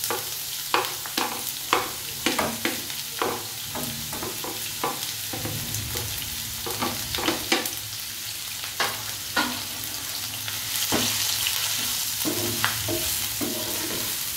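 Chopped onions and green chillies sizzling in hot oil in a nonstick frying pan, freshly added, with frequent sharp taps and scrapes of a spatula stirring them.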